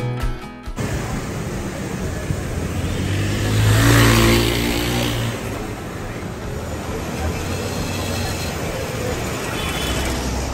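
Street traffic, with one motor vehicle passing close by, its engine and tyre noise swelling to a peak about four seconds in and then fading back into the steady traffic.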